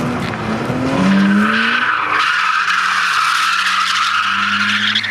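BMW E30 saloon drifting: the engine note climbs in the first second and is then held steady at high revs, while the rear tyres squeal in one long, steady screech from about a second in.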